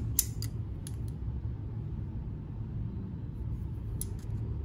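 Steady low background hum, with a few faint metallic clicks from steel butterfly-handle scissors being handled, several just after the start and one more about four seconds in.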